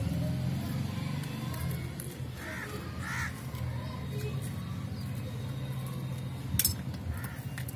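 A crow cawing twice, less than a second apart, over a steady low hum. Near the end comes a single sharp clink of a metal spoon against a steel plate.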